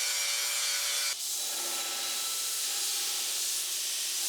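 Abrasive grinding on a steel Damascus billet to clean up its faces: a steady, hissing grind over a faint motor tone, which changes pitch abruptly about a second in.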